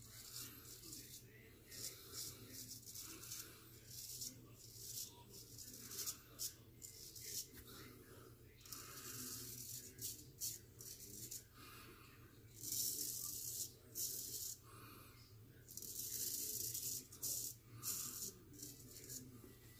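Straight razor scraping through lathered stubble in a run of short strokes, with a few longer strokes past the middle.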